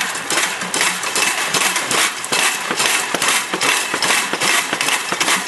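Homemade bicycle-crank water pump being turned by hand: the bike chain, sprocket and pump linkage clatter in a steady run of metallic clicks and clanks.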